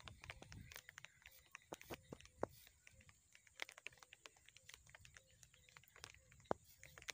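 Faint, irregular clicking and rustling of a cloth bag being handled at its mouth, with a few sharper ticks.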